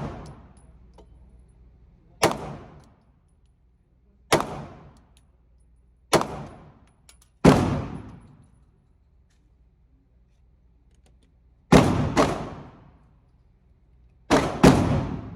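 Eight 9mm pistol shots from a Glock 19, fired singly at an unhurried pace and then as two quick doubles near the end, each shot followed by a short echo.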